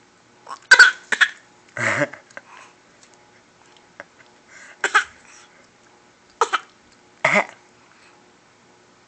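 A baby coughing in short, separate coughs, about six of them: a quick pair about a second in, another soon after, then single coughs spread over the next few seconds.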